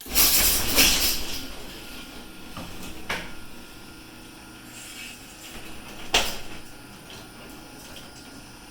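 Chamberlain belt-drive garage door opener raising the door: a loud start as the door sets off, then a steady run with a knock about three seconds in and a louder one about six seconds in.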